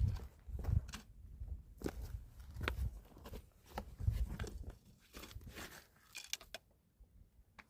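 Hiking footsteps crunching on a dirt and gravel trail, in an uneven stride with thuds and gritty crackles, fading out near the end.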